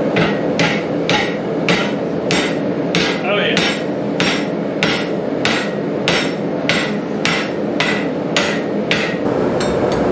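Hand hammer striking red-hot rebar clamped in a blacksmith's vise: about seventeen evenly spaced blows, a little under two a second, that stop shortly before the end.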